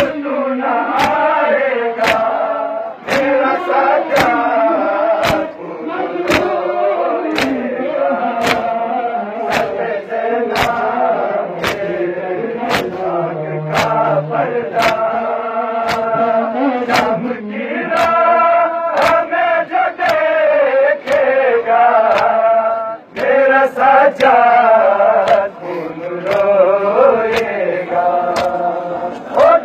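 A crowd of men chanting a Muharram mourning lament (noha) in unison. Sharp slaps of hands on bare chests keep time with it, about three every two seconds: matam, ritual chest-beating.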